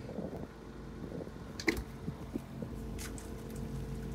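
The catamaran's engine running as a low steady hum, with a few sharp knocks, about two seconds and three seconds in, as a boat hook works against the rudder to free a caught lobster pot line.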